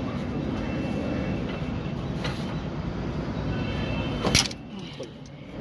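A steady low rumble of nearby vehicle traffic. About four seconds in there is one sharp click as the L-shaped hex key works the tight injector clamp bolt, and the rumble drops away after it.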